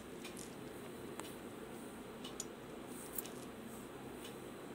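Fingers breaking apart a crisp, deep-fried banana-blossom vadai, its crust crackling faintly in a few small, scattered clicks over a quiet room hiss.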